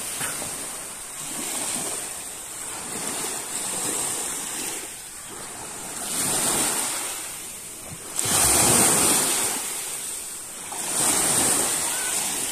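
Shallow sea water washing and lapping in small waves, swelling and easing every couple of seconds and loudest a little past the middle, with wind buffeting the microphone.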